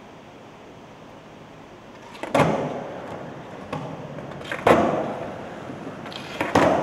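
Skateboard slamming onto the wooden ramps of an indoor skatepark, three times about two seconds apart. Each hit is followed by a rumble of wheels that fades away.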